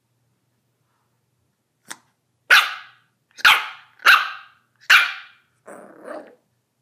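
Yorkshire terrier puppy barking: a faint first yap about two seconds in, then four sharp barks, each under a second apart, and a quieter, lower sound near the end.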